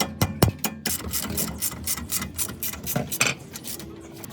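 Hand ratchet wrench clicking in a run of quick strokes while a suspension-arm bolt is turned, with a couple of heavier metallic knocks near the start.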